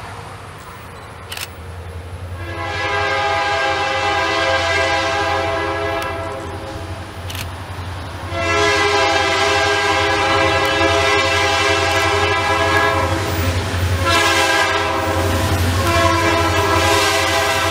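Diesel freight locomotive's multi-chime air horn sounding the grade-crossing signal as the train approaches: two long blasts, a short one, then another long one. A steady low engine rumble runs beneath.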